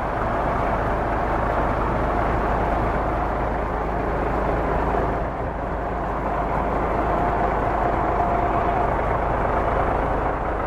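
Steady vehicle engine and street noise, an even, unbroken rumble.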